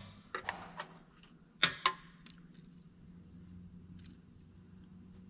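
A few light metallic clinks and rattles of small parts or a tool being handled, loudest about two seconds in, over a faint steady hum.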